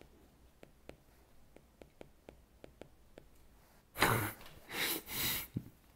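Stylus tip tapping and clicking lightly on a tablet's glass screen while writing, then about four seconds in a stifled laugh: three breathy snorts through the nose, the first the loudest.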